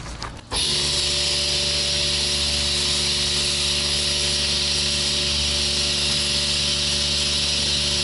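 Self-service car wash foam lance spraying active foam: a steady hiss that starts about half a second in, over a steady machine hum.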